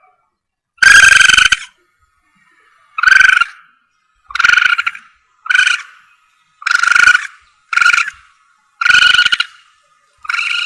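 Civet calls from a hunting lure recording: a run of eight short, high cries, about one a second, the first the longest.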